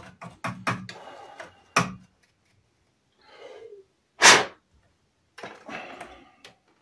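Clicks and scrapes of parts being handled, then a quick breath in and a single loud sneeze about four seconds in, followed by more scraping.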